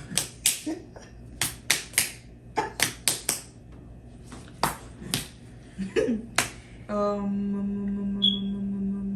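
A string of sharp snaps or claps, about two or three a second at uneven spacing, for roughly six and a half seconds. Then, about seven seconds in, a steady hummed note begins and is held.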